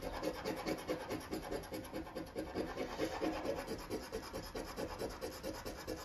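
Scratching the latex coating off an FDJ Mega Goal scratch card: rapid, even scraping strokes.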